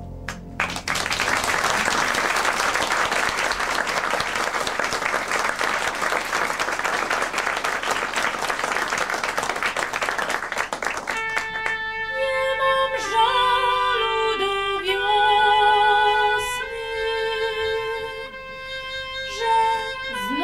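Audience applauding for about ten seconds. Then a slow instrumental begins: an oboe playing long held notes with vibrato over a bowed double bass.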